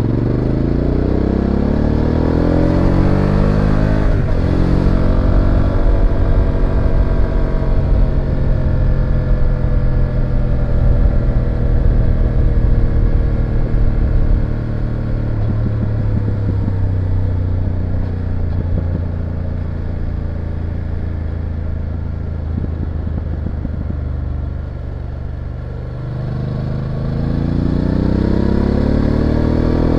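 BMW F850GS motorcycle's parallel-twin engine under way: it revs up hard in the first few seconds, then its pitch falls slowly as the bike eases off, runs steadily lower for about ten seconds, and revs up hard again near the end.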